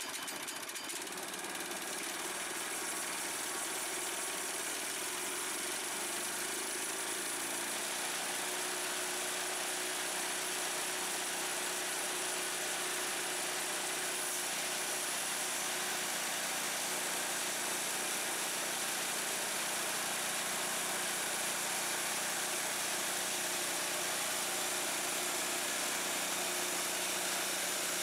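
Small petrol engine of a portable band sawmill running steadily while its band blade cuts lengthwise through a squared log into 2-inch boards.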